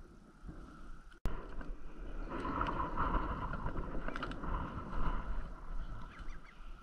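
Gloved hands handling a catch and rustling in a fabric fish bag, with an abrupt cut in the sound about a second in.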